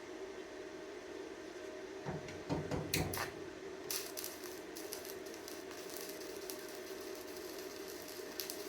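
A few knocks, then about four seconds in an E6013 stick-welding arc strikes and runs with a steady crackle and sizzle, over a low hum.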